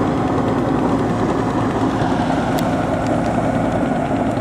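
Engine of a homemade rice combine harvester running steadily as the machine crosses the flooded field.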